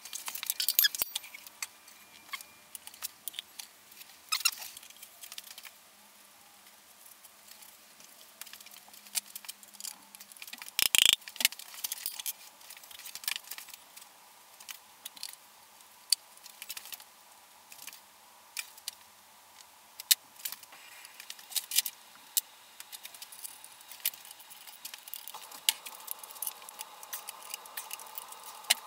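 Scattered light metallic clicks and clinks of hand tools and engine parts as pistons and connecting rods are fitted into a BMW M54 engine block, with one louder knock about 11 seconds in.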